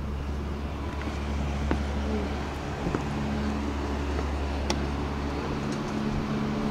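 Steady low mechanical hum of a running gondola lift's station machinery, with a few light ticks over it.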